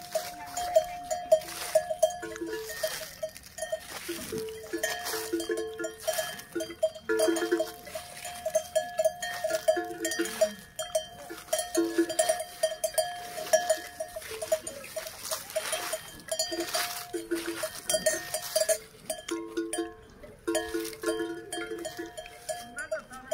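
Bells on grazing cows clanking irregularly, in clusters of strikes as the cows move their heads to feed.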